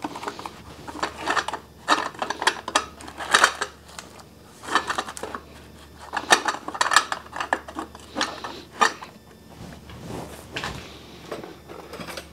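Metal clinking and rattling in bursts of sharp clicks as a sheet-metal heat shield is worked into place on a new exhaust up pipe of a 7.3 Powerstroke diesel, quieter near the end.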